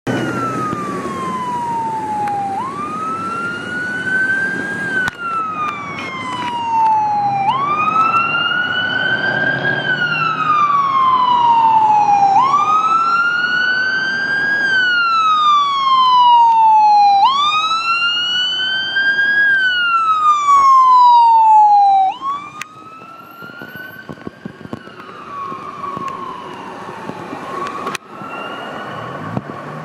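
Ambulance siren in wail mode, rising and falling slowly about every five seconds. It gets louder as the ambulance approaches and passes, then drops away sharply about 22 seconds in as it drives off. Traffic noise runs underneath.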